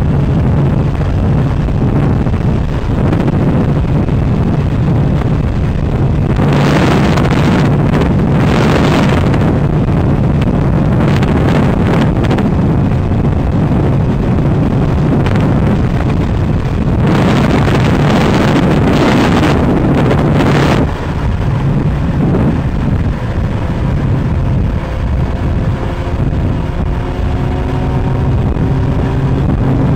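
A powered craft's engine running steadily, with wind buffeting the microphone in two long gusts. From about two-thirds of the way in, several engine tones slowly slide in pitch.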